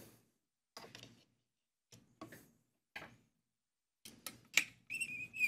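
Scattered light clicks and knocks from hands handling a Shaper Origin handheld CNC router with its spindle off, with a brief high-pitched tone near the end.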